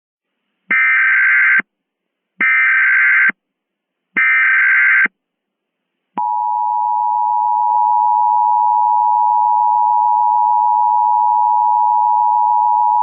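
Emergency Alert System tones: three short bursts of warbling SAME data header, then the steady two-tone EAS attention signal starting about six seconds in. This sequence marks the start of a new alert message.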